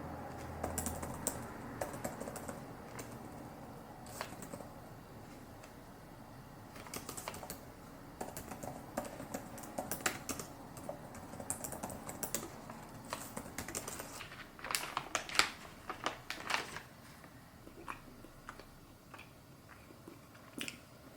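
Typing on a computer keyboard: irregular runs of key clicks with short pauses between them, busiest in the middle stretch.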